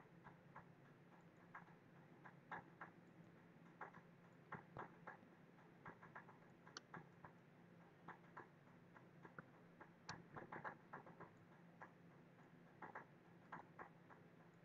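Faint computer mouse clicks, irregular and sometimes in quick runs of two or three, over a faint steady low hum.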